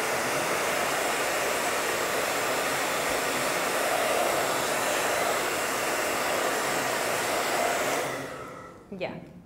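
Handheld hair dryer blowing steadily, drying a freshly applied layer on a craft piece; it is switched off near the end and its sound dies away.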